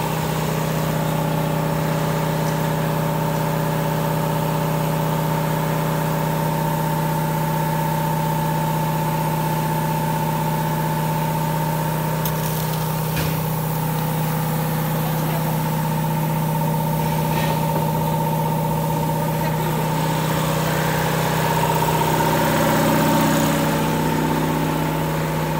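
A machine running steadily, a constant engine-like hum with a low tone and a higher whine, getting a little louder shortly before the end.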